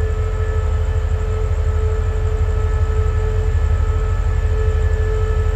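Diesel passenger train standing at the platform with its engines idling: a steady low rumble with a constant whine over it that does not change.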